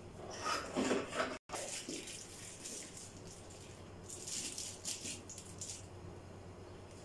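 Blue plastic screw lid being twisted onto a large plastic jar over a plastic bag stretched across its mouth. It makes a run of crackly, scraping rustles about four to six seconds in, after some handling clatter in the first second or so.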